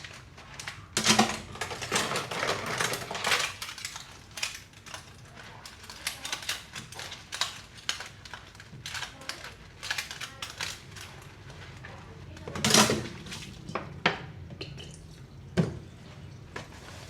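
Dishes and cutlery clinking and knocking against each other as they are washed by hand, with a busy spell of clatter in the first few seconds and a few single louder knocks later.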